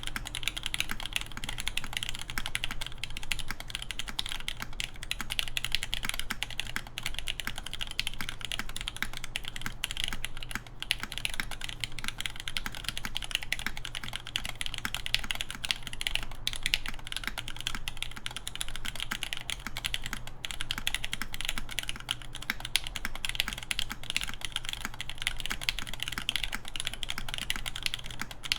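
Continuous typing on a Dalco 959 Mini GT mechanical keyboard with lubed Nixdorf Cherry MX Black linear switches, an aluminium plate and Cherry G81-3100 keycaps: a dense, steady stream of keystrokes with a brief lull about ten seconds in.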